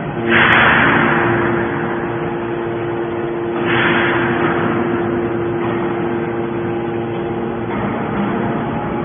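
Hydraulic scrap metal baler running: a steady hum from its hydraulic power unit, with two loud bursts of harsh noise about three and a half seconds apart, each dying away over about a second.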